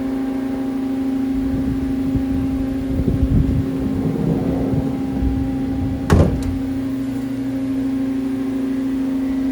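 Mori Seiki SL-4 CNC lathe under power, its motors and hydraulics giving a steady hum, with a single sharp clunk about six seconds in.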